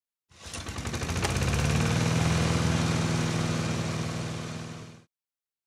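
Engine running as the sound of a logo intro: it fades in, runs with a fast even pulsing and a slight rise in pitch, with a sharp click about a second in, then fades away and stops about five seconds in.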